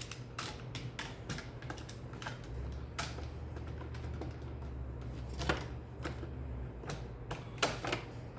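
Irregular light clicks and taps of chainsaw recoil starter parts being handled and fitted back together.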